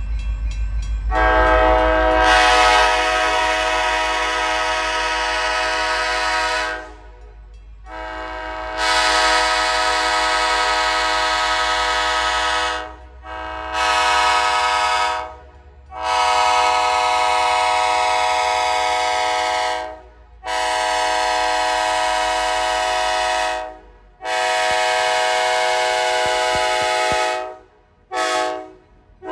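Loud multi-chime air horn of a GP40FH-2 diesel locomotive, blown in about seven blasts: mostly long ones of four to six seconds, with a couple of short toots between them. Each blast is a steady chord of several notes at once.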